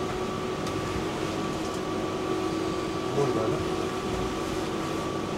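Steady hum inside a tram car, with constant whining tones from its onboard equipment.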